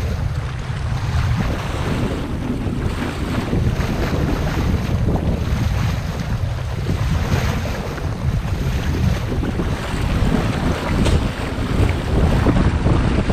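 Wind buffeting the microphone, with choppy water slapping and splashing against the hull of a sail-driven Hobie Adventure kayak.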